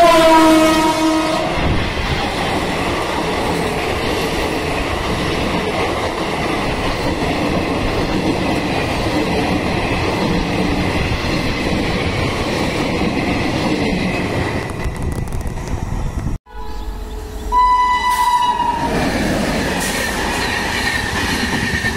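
An Indian Railways electric locomotive's horn sounds as it passes, dropping in pitch, followed by about fifteen seconds of steady noise from a passenger train's coaches running past at speed. After a sudden break, another train horn blows briefly over the noise of passing coaches.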